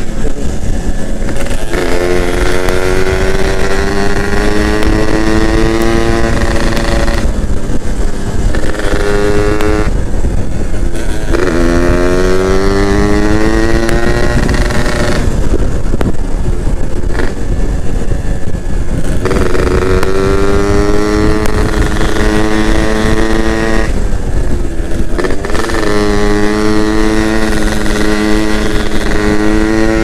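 Yamaha F1ZR's single-cylinder two-stroke engine pulling hard under way, its pitch climbing through each gear. Between pulls the throttle shuts off for a moment, several times.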